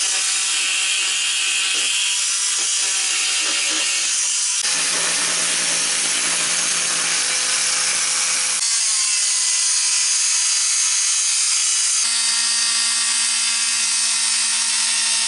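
Corded Ridgid oscillating multi-tool running under load, its half-moon blade cutting through the old sealant and epoxy that holds the sink rim to the countertop. It makes a loud, steady buzz whose pitch jumps abruptly three times.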